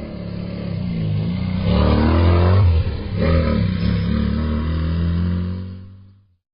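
Racing car engine revving, its pitch climbing to a peak, dropping briefly about three seconds in, then climbing again before fading out near the end.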